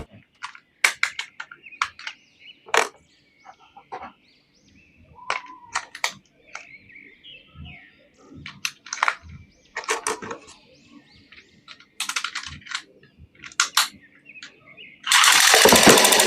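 Scattered sharp clicks, knocks and short squeaks of plastic action figures and their packaging being handled. About a second before the end, a loud, harsh, continuous noise sets in.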